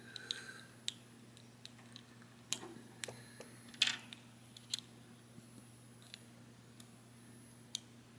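Light plastic clicks and taps as the small parts of a plastic action figure are handled, a face piece swapped and the figure posed: about half a dozen separate clicks, the loudest about four seconds in, over a faint steady low hum.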